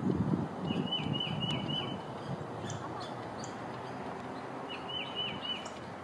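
Small birds scolding a perched red-shouldered hawk: a quick run of four or five identical clear, down-slurred call notes about a second in, a few short high chips, then another run of four notes near the end. A low rumble under the first two seconds fades out.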